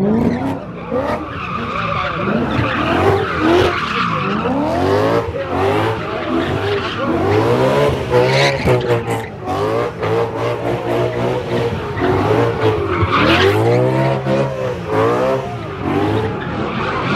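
A car doing donuts in a parking lot: its engine revs up and falls back over and over, in waves a second or two apart, while the tires screech and slide on the pavement.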